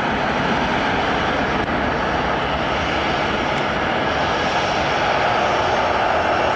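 Airliner engines running with a steady rushing noise, growing a little louder about five seconds in.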